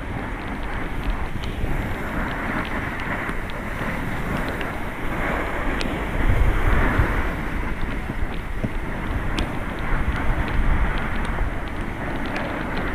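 Wind buffeting the microphone of an action camera sliding down a ski slope, with the rough hiss and rumble of sliding over packed snow and scattered sharp ticks. It swells about six seconds in.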